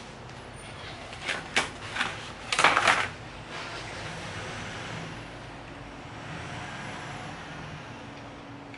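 Handling noise as an LED garage light is unpacked: a few sharp clicks and knocks, then a short burst of rustling and knocking about two and a half seconds in, with a steady low background noise after it.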